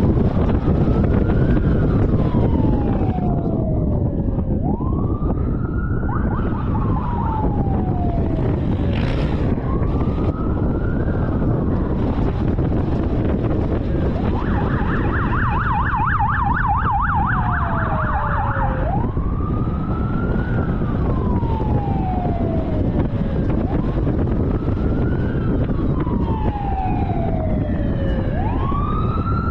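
Police siren wailing in slow rising and falling sweeps every four or five seconds, with a second siren yelping rapidly for a few seconds about halfway through, over steady road and wind rumble from a car driving behind.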